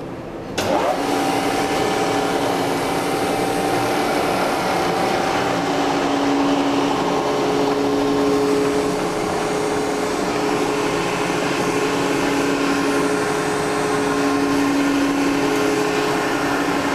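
A vertical milling machine's spindle motor starts suddenly about half a second in, then runs steadily with a hum made of a few steady tones.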